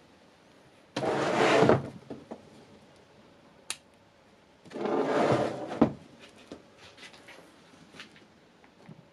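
Handling noise on a tabletop: two sliding, scraping sounds of about a second each, the first about a second in and the second about five seconds in, each ending in a light knock. Between them, a short sharp click from the unit's rocker power switch being turned on.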